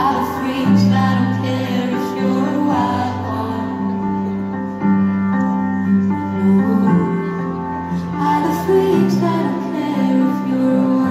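Live pop ballad: a woman singing over sustained keyboard chords that change every couple of seconds.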